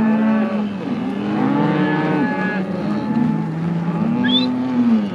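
A herd of cattle being driven, many cows mooing at once in long overlapping calls with no break.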